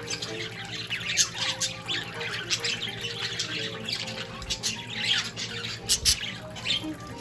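Young budgerigars chattering and chirping rapidly, with scratchy squawks mixed in.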